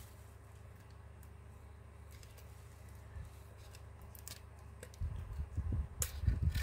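HUAWEI P20 lite smartphone parts being handled: a few light clicks, then from about five seconds in, louder low bumps and rustling as the phone body and display panel are turned over and pulled apart.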